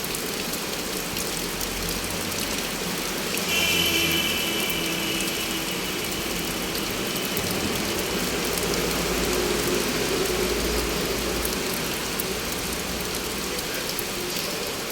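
Heavy rain falling steadily. A low rumble swells through the middle, and a brief high whine sounds about three and a half seconds in.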